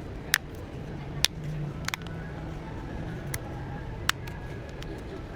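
A few sharp, short clicks, one of them a quick double, over a steady low hum.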